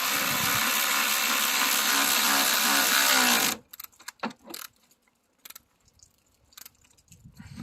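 Power drill running steadily for about three and a half seconds as it drives in the bolt holding the ground wire, then stopping suddenly; a few light clicks follow.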